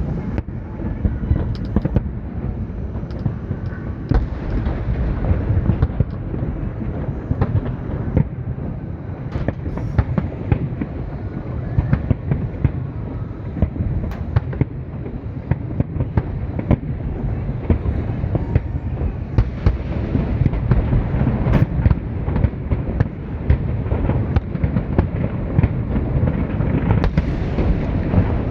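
Large fireworks display: a continuous heavy rumble of shells bursting, with many sharp cracks and bangs scattered through it.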